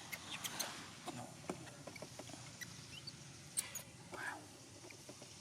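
Newborn monkey giving short, faint squeaks among small clicks and rustles.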